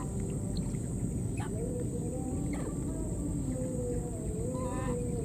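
Outdoor ambience: a steady high insect drone over a low rumble, with a few short chirping calls and faint wavering tones now and then.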